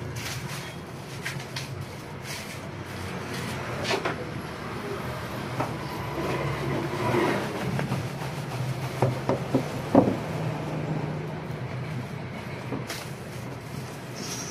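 A monitor being unpacked from its cardboard box and plastic wrapping: rustling, scraping and a few sharp knocks, loudest about ten seconds in, over a steady low hum.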